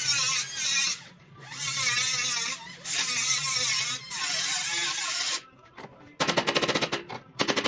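A pneumatic air tool, such as an impact wrench or air hammer, hammers in a fast, continuous rattle from about six seconds in. Before it, a wavering pitched voice is heard for several seconds.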